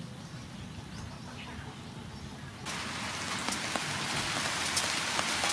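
Steady hiss of rain falling on a surface, with scattered small drop clicks. It starts abruptly about halfway through over a quiet low background and grows louder toward the end.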